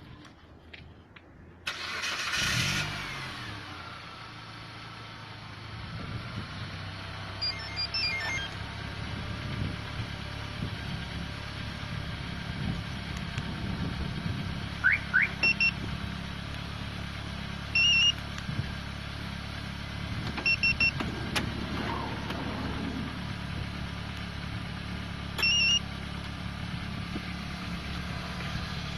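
Mitsubishi Delica D5 engine started by the StarLine B9 alarm's remote start: a brief crank about two seconds in, then it catches and idles steadily. Several short electronic double beeps sound over the idle.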